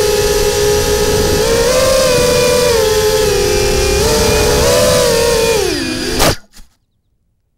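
Quadcopter drone's electric motors and propellers whining close up, the pitch rising and falling with the throttle. About six seconds in the pitch sinks as it sets down on the grass, there is a thump, and the motors stop.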